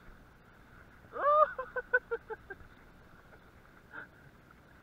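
A high-pitched call about a second in: one long note rising and falling, then a quick run of short notes that fade away.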